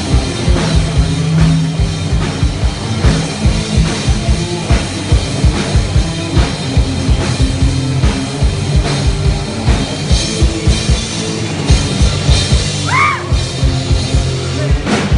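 A rock band playing live: a drum kit with a steady, driving kick-drum beat under sustained bass and other instruments. Near the end, a short high note slides up and back down.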